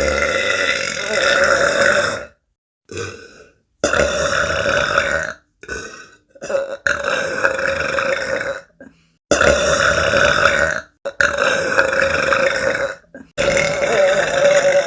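Women burping: a run of about six long, drawn-out belches, each lasting about two seconds, one after another with short gaps between them.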